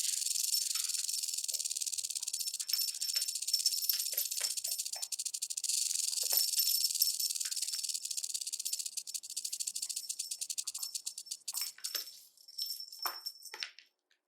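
Snake sound effect: a dry, high hissing rattle with a fast, fine clicking inside it. It runs steadily for about twelve seconds, then breaks into short separate bursts near the end.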